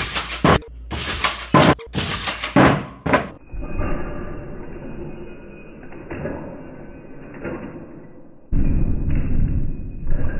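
The HyperLeg robot leg's metal foot and linkages strike the floor in a rapid series of sharp impacts through the first three seconds. After that come duller, muffled crashes and rattling from the leg's collisions and falls, with a loud burst of clatter about eight and a half seconds in.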